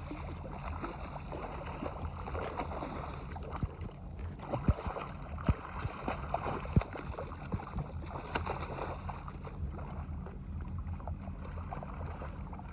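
Hooked bluefish thrashing at the water's surface beside the boat, splashing, with the loudest sharp splashes bunched between about four and seven seconds in, over a steady low rumble.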